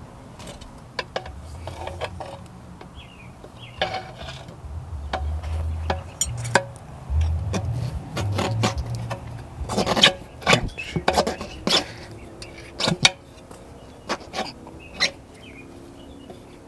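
Metal tire spoons clinking and scraping against a motorcycle wheel rim while the bead of a new tire is levered on, in irregular clinks and knocks that come thickest about ten seconds in.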